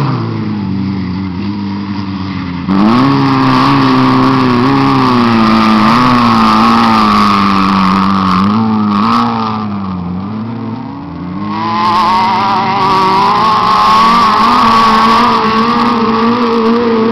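Off-road racing buggy engines running hard, the engine note rising and falling with throttle and gear changes. It gets suddenly louder about three seconds in, sags around ten seconds, then climbs again as the engines rev up.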